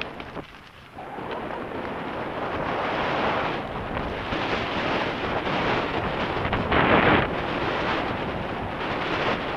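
Mountain bike riding down a muddy, leaf-strewn woodland trail: wind noise on the camera's microphone over tyre roar and the rattle of the bike over bumps. The level dips briefly just under a second in, and there is a louder burst about seven seconds in.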